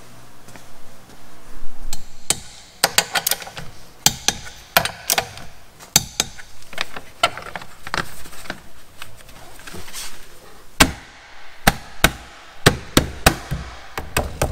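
Plastic hubcap of a Renault Twizy being struck and pressed by hand onto the steel wheel: a long irregular series of sharp knocks and clicks, often in quick clusters, as the tight-fitting cap is forced to snap into place.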